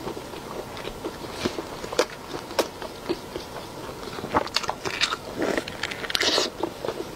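Close-miked eating sounds: sharp little crunches and wet clicks of biting and chewing a chili-oil-soaked fried ball from cold pot skewers. A run of louder, crisper crunches comes in the last couple of seconds as she bites into it.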